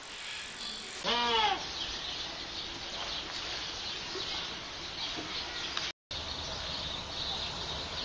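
Zoo bird calls: one loud, pitched call lasting about half a second, rising and then falling in pitch, about a second in, over a steady background of high bird chatter.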